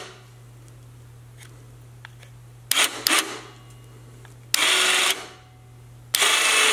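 A Harbor Freight 2,500 lb 12-volt electric winch motor whirring in short bursts of about half a second, starting and stopping suddenly, as 12 V is touched to the solenoid's input terminals with a power probe. It runs one way and then in reverse, which confirms how the solenoid's F1 and F2 inputs are wired.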